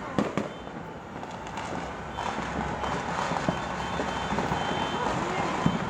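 A single sharp firecracker pop, then a steady background din of New Year's Eve noise. From about two seconds in the din grows louder and a held horn-like tone runs through it.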